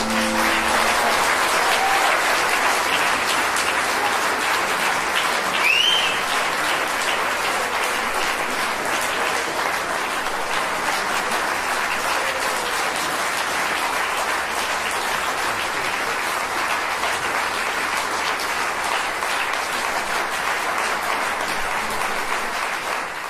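Large audience applauding steadily after a live performance, with a short rising whistle about six seconds in. The applause fades out at the very end.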